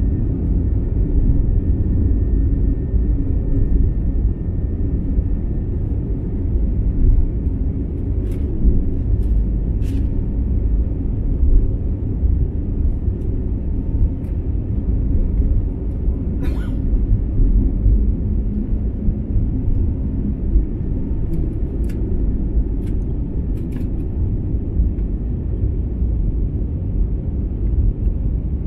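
Inside the cabin of an Airbus A320neo during its takeoff roll and climb-out: a loud, steady, deep rumble of the engines at takeoff power and the undercarriage on the runway, with a few scattered knocks and rattles.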